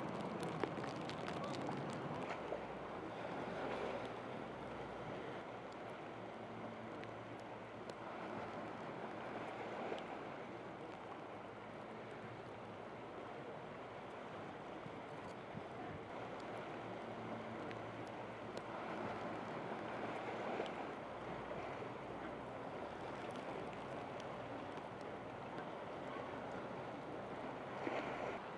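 Storm-driven harbour water washing over a flooded wharf, with wind, in surges that swell and ease every several seconds.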